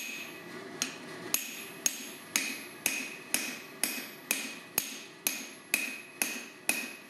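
Blacksmith's hammer striking steel on an anvil in a steady rhythm, about two blows a second, each with a bright metallic ring.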